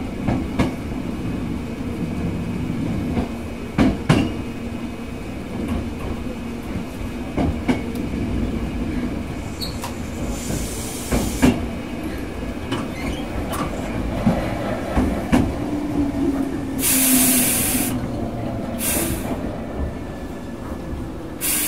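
Interior running sound of a Hankyu 6300 series train car slowing into a station: a steady rumble and hum, with wheels clicking over rail joints at irregular intervals. In the last few seconds, several short bursts of hissing air come from the brakes.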